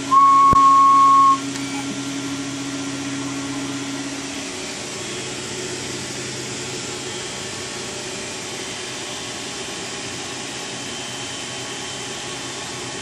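A steady electronic beep tone sounds for just over a second at the start, with a sharp click partway through it. After it a steady rushing hiss from the radio station gear runs on, with a low hum that drops away about four seconds in.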